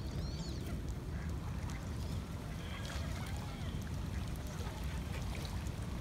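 Steady low wind rumble on the microphone, with a few faint calls from ducks and Canada geese over it.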